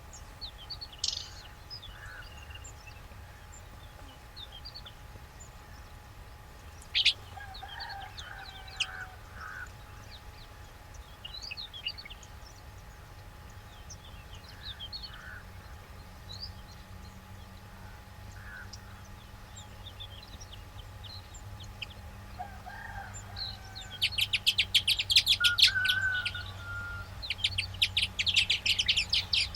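Baya weavers chirping: scattered short chirps, then near the end two loud bouts of fast, buzzy chattering. A steady low hum runs underneath.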